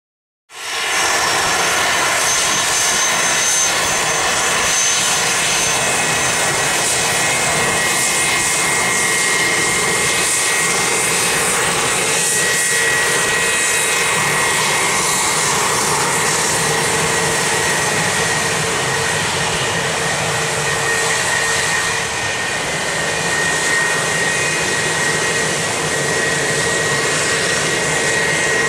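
Business jet's turbofan engines running at taxi power: a steady rush of jet noise with a high whine, coming in suddenly just after the start.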